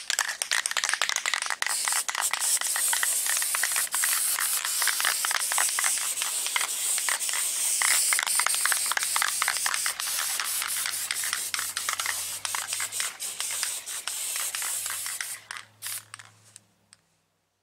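Aerosol can of flat black spray paint hissing as a light guide coat is sprayed. The spray is long and nearly continuous, breaks into a few short bursts about sixteen seconds in, then stops.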